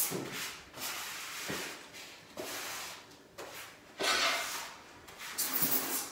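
Grout being worked by hand across ceramic floor tiles: a series of irregular scraping, rubbing strokes as the tool is dragged over the tile and joints, the loudest about four seconds in and again near the end.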